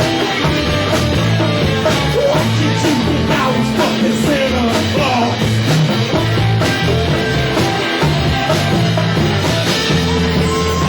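A rock band playing a song live, loud and continuous, with a run of sliding pitched notes near the middle.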